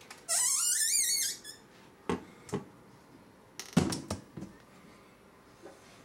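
Acrylic enclosure lid squeaking on its hinge as it is moved, a wavering squeak rising in pitch for about a second, followed by a few plastic clicks and knocks, loudest about four seconds in, as the enclosure is closed up.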